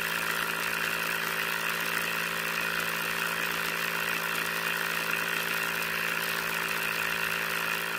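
Mini water pump's small electric motor running steadily with a hum, while water pours from its outlet pipe into a basin.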